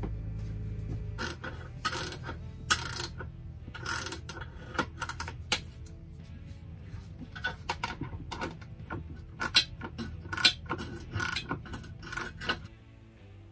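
Socket ratchet clicking in short irregular bursts as the bolts holding the toilet to the floor are snugged up, over background music.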